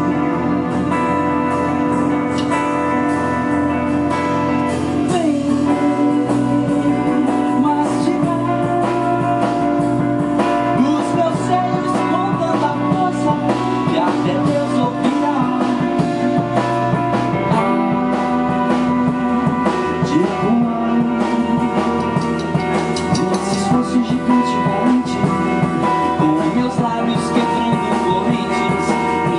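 A band playing an instrumental passage on guitar, bass, drums and keyboard, with a steady drum beat. The bass moves to a new note about six seconds in and again a little past halfway.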